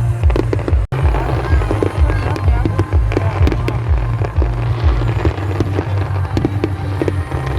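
Celebration fireworks going off in quick bangs and crackles over loud music with a heavy pulsing bass. The sound drops out for an instant about a second in.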